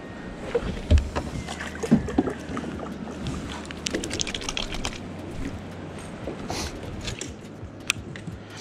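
Sounds of movement aboard a small fiberglass fishing boat: scattered knocks and clicks of gear and hands on the hull, over a low steady hum.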